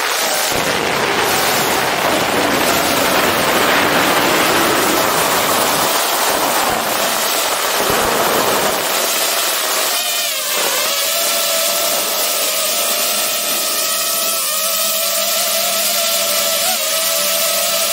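DJI FPV drone's propellers and motors, heard from a camera mounted on the drone itself: for the first half a dense rushing noise of air and props, then from about ten seconds a steady, slightly wavering motor whine.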